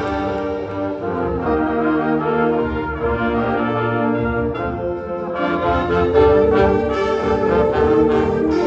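Indoor winds ensemble playing brass-led music in sustained chords, swelling louder about five seconds in.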